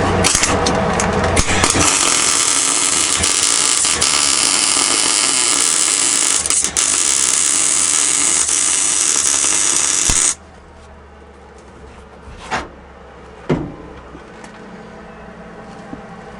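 A power tool runs steadily with a loud whirring hiss for about ten seconds, then stops abruptly. Two short knocks follow over a low hum.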